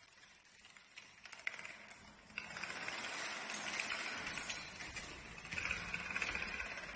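Playing cards toppling one after another like dominoes on a tiled floor: a fast, dense clatter of card edges slapping down. Sparse ticks at first, thickening into a steady crackling rush about two and a half seconds in, as many lines of cards fall at once.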